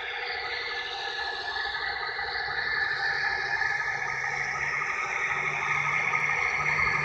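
Model diesel switcher locomotive running across a truss bridge on a layout, giving a steady mechanical whir with slowly shifting pitch; a low hum comes in and grows louder about five seconds in as the locomotive draws close.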